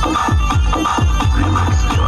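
Loud electronic remix dance music with a steady, fast kick-drum beat, about four beats a second.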